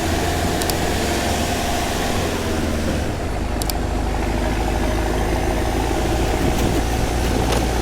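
Vehicle engine running steadily at low revs, a constant low hum with a few light clicks.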